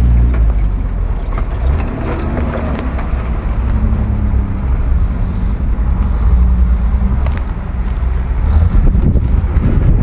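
Engines of off-road SUVs running at low speed as they crawl along a dirt track, the engine note rising and falling, with a few light clicks and cracks.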